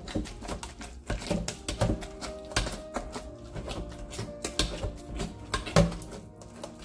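A metal potato masher knocking and scraping against a stainless steel pot while it mashes boiled green bananas, with irregular clacks about two a second. Background music plays under it.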